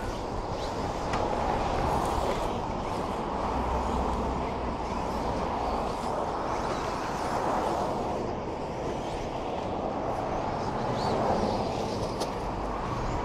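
Radio-controlled racing trucks running on a dirt track: a continuous rushing of motors and tyres that swells and fades as the trucks pass.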